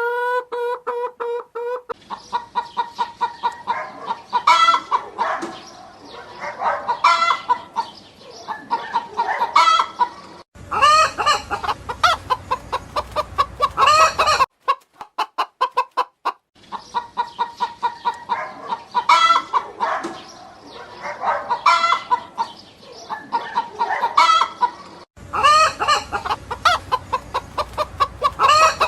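Domestic hens clucking in quick runs of short repeated clucks. A low background noise comes in twice under the calls.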